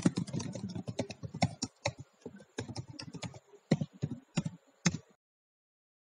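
Computer keyboard typing: a quick run of key clicks, then a few slower, separate keystrokes, cutting off suddenly about five seconds in.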